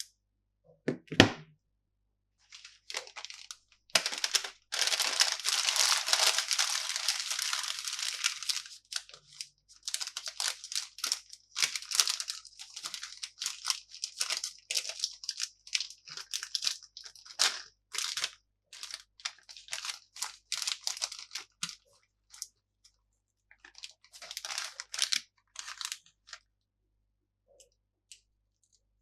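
Plastic candy packaging being torn open and crinkled: one sharp knock about a second in, then a long continuous tear from about four seconds, then many short crackles and crunches that stop a few seconds before the end.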